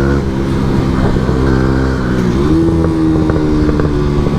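Yamaha MT-125's single-cylinder engine through an Akrapovič exhaust, crackling and popping off the throttle. About two and a half seconds in, the revs rise and hold steady.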